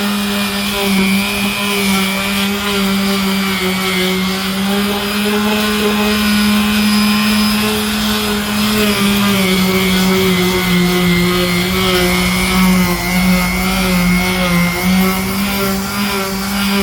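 Power sander running steadily, sanding cured body filler on a car panel: a constant motor hum whose pitch dips slightly now and then.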